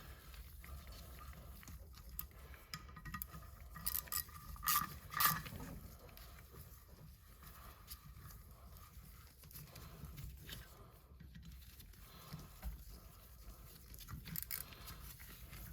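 Scattered light metallic clicks and clinks of bolts being threaded and snugged into a turbocharger cover with a hand tool, a few sharper ones about four to five seconds in, over a low steady hum.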